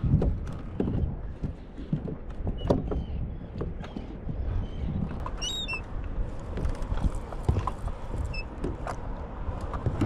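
Irregular knocks and taps on a fishing kayak, with a brief high chirp about five and a half seconds in.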